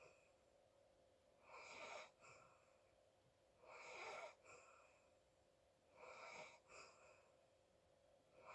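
A sleeping person snoring faintly: four wheezy, hissing breaths about two seconds apart, each followed by a short second puff.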